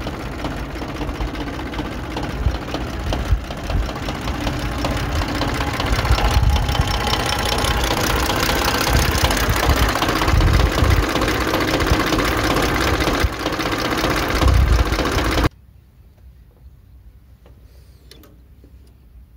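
Ford 1910 tractor's three-cylinder diesel engine running with a knocking diesel clatter, growing louder about six seconds in. About three-quarters through, the engine sound cuts off abruptly, leaving a few faint clicks.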